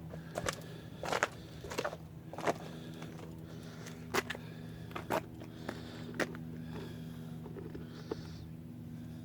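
Irregular light clicks and knocks, about a dozen, over a steady low hum; the knocks thin out in the last few seconds.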